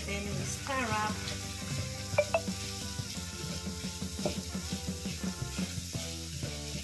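Wooden spatula stirring and turning shredded cabbage in a large non-stick frying pan, with quick repeated scrapes and clicks against the pan and the cabbage sizzling underneath.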